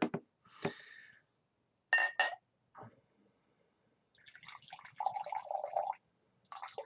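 Mead being poured from a glass wine bottle into a drinking glass, gurgling, starting about four seconds in; before it, two quick ringing clinks of glass about two seconds in.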